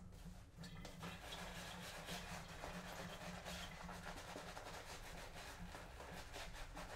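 Two-band finest badger shave brush scrubbing shave soap lather on the face, a faint soft rubbing of many short strokes that picks up about a second in. Water just added to the brush tips is being worked into the lather to hydrate it.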